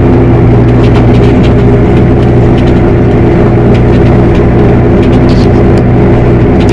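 Tractor engine running at a steady speed, a loud even drone with a constant pitch throughout.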